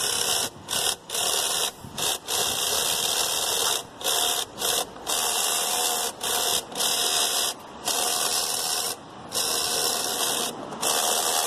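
Team Associated CR12 RC crawler's electric drivetrain run in repeated short bursts, a mechanical whirring and clicking from its transmission. The sign of stripped transmission gears, which the owner suspects are a factory defect.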